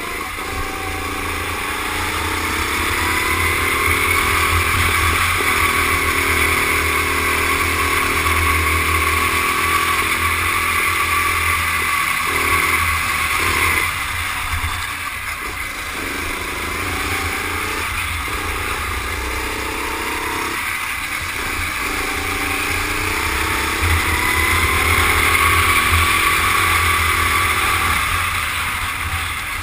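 Rental go-kart engine heard onboard at racing speed, its whine climbing as it accelerates out of a corner, holding at high revs, dropping about halfway through as it eases off, then climbing again near the end.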